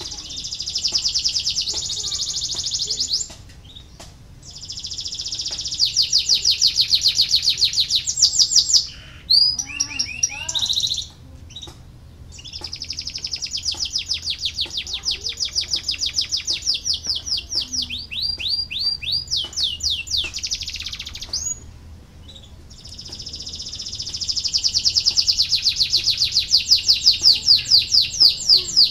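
Domestic canary singing long, fast rolling trills in phrases of several seconds each, with short pauses between them.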